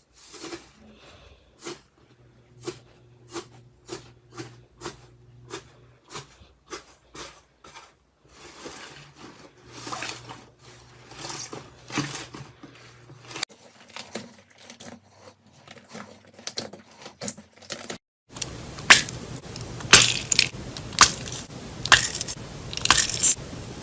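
Slime being pressed and poked up close, giving a run of sharp clicks and crackling pops about one or two a second, in several short takes. The last take is louder and busier.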